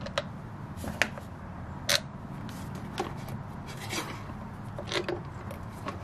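Metal tool clicks and scraping at a golf cart battery terminal as the negative battery cable is taken off, sharp clicks coming about once a second over a steady low hum.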